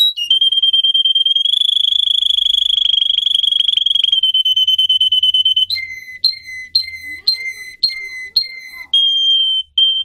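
Domestic canary singing: a long, rapid trill held on one high pitch for about five seconds, then about six two-note phrases, each stepping high then low, roughly two a second, and a short steady note near the end.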